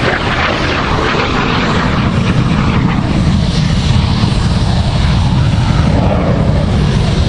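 North American F-86A Sabre's General Electric J47 turbojet roaring as the jet passes overhead and pulls up into a steep climb. The roar is loud and steady throughout, with a heavy low rumble.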